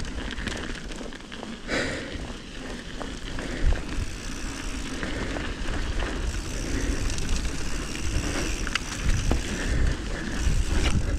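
Mountain bike tyres rolling fast over a dirt and gravel trail, with wind rushing over the microphone and scattered clicks and knocks from stones and the bike's parts.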